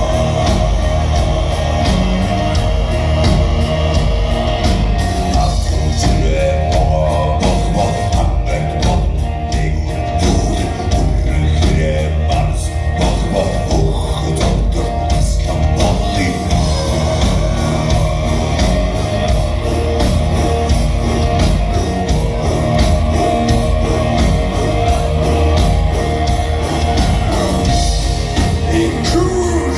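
Mongolian folk-metal band playing loud and live, heard from inside the crowd: a driving drum beat, a bowed horsehead fiddle (morin khuur) and electric guitars, under deep throat-sung vocals.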